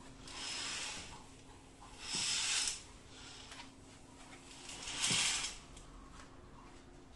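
Curtain being pulled open in three swishes of fabric sliding along its rail, over a faint steady hum.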